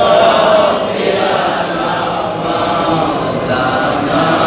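Men's voices chanting a salawat, the Arabic blessing on the Prophet Muhammad, in long drawn-out melodic notes that glide in pitch.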